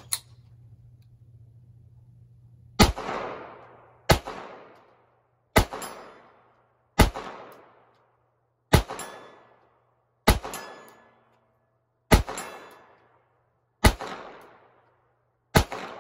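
Ruger Mark IV pistol in .22 Long Rifle fired nine times at a slow, steady pace, a shot every second and a half or so. Each crack echoes and dies away over about a second. A short knock sounds at the very start.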